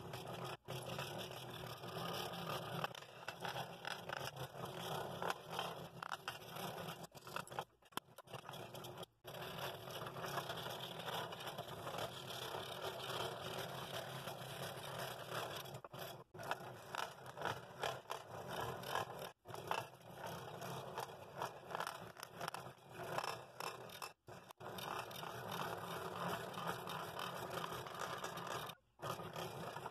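Scroll saw running, its reciprocating blade cutting through a thick wooden block with a steady rasping scrape. There are several very brief breaks in the sound.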